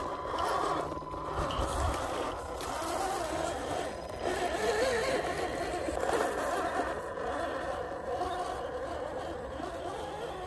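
Small RC crawler's motor and drivetrain running as it drives over dirt, the whine wavering in pitch as the throttle changes, with short breaks where the sound cuts.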